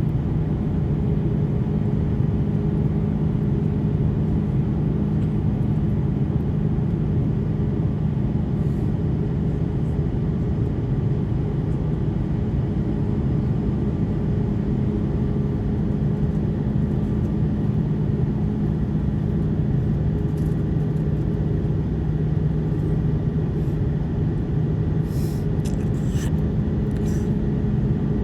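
Airbus A330-200 cabin noise heard from a window seat: a steady jet-engine drone and airflow rush, with a constant low hum, as the engines run at an unchanging power setting. A few faint clicks come near the end.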